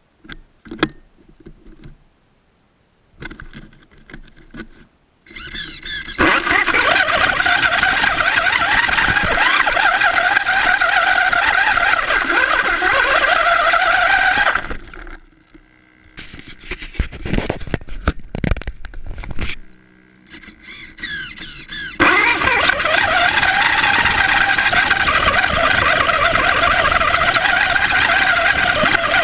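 FTX radio-controlled car running, its motor giving a high whine that wavers in pitch with speed, mixed with tyre noise. After a few short starts it runs steadily for about eight seconds, stops, gives a series of short bursts, then runs steadily again from about two-thirds of the way through.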